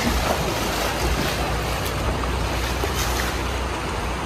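Shallow river water rushing steadily over stones, with wind rumbling on the microphone. Water splashes as a bucketful is thrown against a car near the end.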